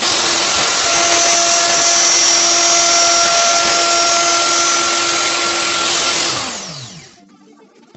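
An electric power tool motor starts abruptly and runs loudly and steadily for about six seconds. It is then switched off and winds down, its pitch falling as it fades.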